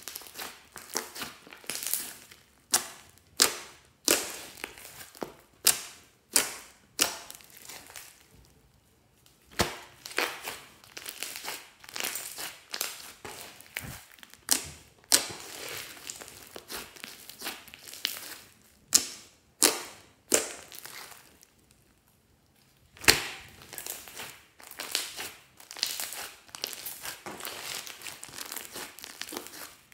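Hands squeezing, stretching and folding glossy slime mixed with small foam beads: irregular sharp sticky pops and clicks with crackling in between, pausing briefly twice.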